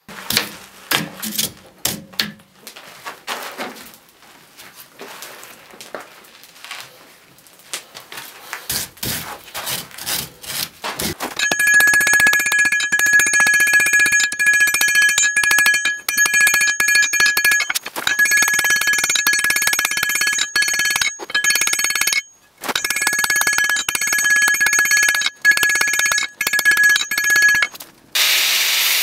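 A hot Damascus steel billet being worked. First come scattered metal clanks and knocks while it is twisted in a vise. Then, from a little before halfway, continuous hammering on the anvil begins, the anvil ringing in a steady high tone, broken by a few short pauses.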